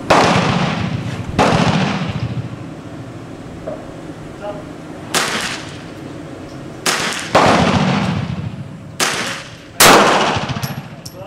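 Springfield Armory XDm 9mm pistol firing seven single shots at an irregular pace, from about half a second to nearly four seconds apart. Each shot rings out with a long echoing tail under the covered firing line.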